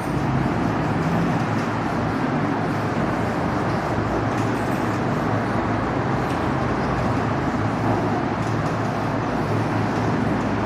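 Steady background rumble with a low hum and even hiss, unchanging throughout.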